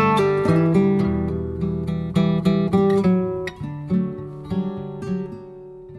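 Background music: acoustic guitar strumming, gradually fading out.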